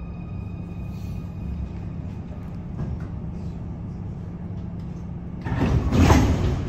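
Munich Type C2 U-Bahn train standing in a station with a steady low hum from the stationary train. About five and a half seconds in, a sudden louder rushing noise sets in, fitting the train's sliding doors opening.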